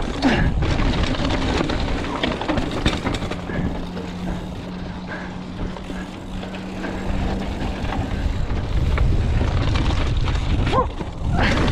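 Mountain bike ridden fast over dry dirt and rock singletrack: tyres rolling over the dirt, with scattered clicks, knocks and rattles from the bike over rocks and low wind rumble on the microphone. A steady hum sounds for a few seconds midway.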